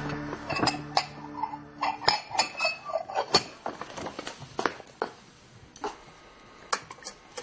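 A quick run of light clicks and clinks, like small dishes or containers being handled, dense for the first few seconds and sparser after. Background music fades out over the first two seconds.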